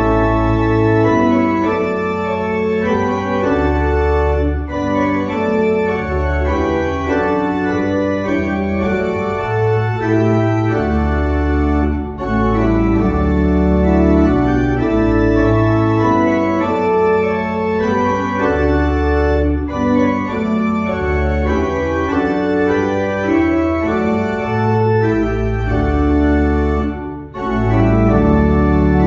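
Church pipe organ playing slow, sustained chords over a moving pedal bass, with a brief break in the sound near the end.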